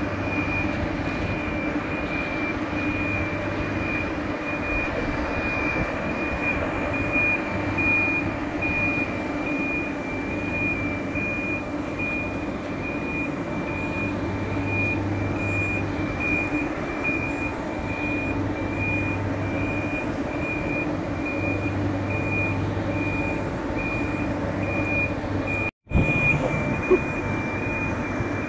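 Mobile boat hoist moving a yacht: its warning beeper sounds over and over at an even pace above the steady hum of the hoist's engine.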